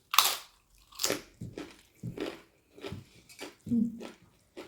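A person chewing a mouthful of food close to the microphone: irregular moist chews and bites, one or two a second, the loudest right at the start.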